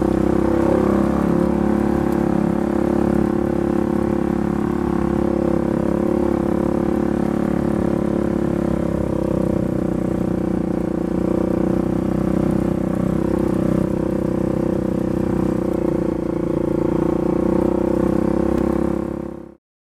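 Freshly rebuilt Polaris 570 single-cylinder engine running steadily at an even speed, then cutting off suddenly near the end.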